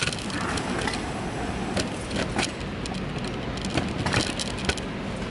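Scattered light clicks and knocks of hands handling things, a few sharp ones near the start and around the middle and later part, over a steady background hum.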